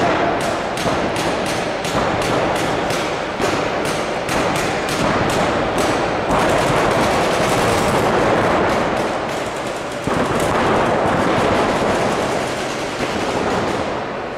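Paintball markers firing in rapid strings of shots, several a second, over a continuous din. The shots thin out toward the end.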